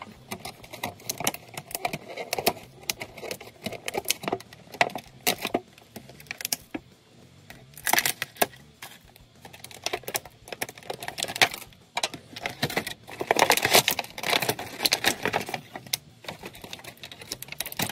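Clear plastic packaging crinkling and crackling as an action figure is worked out of its plastic tray and bag, a run of irregular sharp clicks and rustles. It grows louder around 8 seconds in and again from about 13 to 15 seconds.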